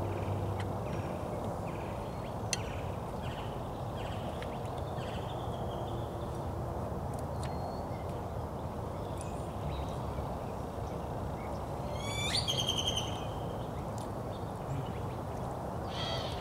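Small birds chirping sparsely over a steady low outdoor rumble, with one louder call of quick repeated notes about twelve seconds in.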